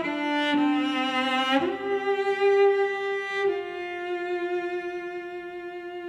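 Background music: a bowed string instrument playing a slow melody of long held notes, the last one sustained for several seconds.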